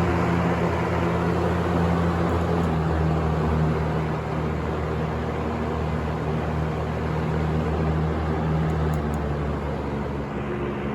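1973 Lakewood P-223 box fan running: its plastic blades moving air with a steady rush over the hum of its McMillan motor. The rush eases slightly toward the end.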